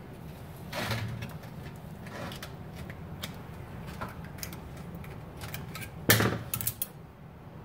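Screwdriver clicking and scraping against the steel snap ring and clutch drum of a Velvet Drive marine transmission clutch pack as the outer snap ring is pried out of its groove: scattered light metal clicks, with a louder rasp about a second in and again about six seconds in.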